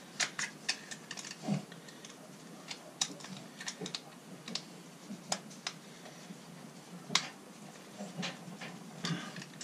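Irregular small clicks and taps of a screwdriver on the terminal screws of a blue plastic caravan hook-up plug as the live and neutral wires are tightened in, with the plug being handled and turned.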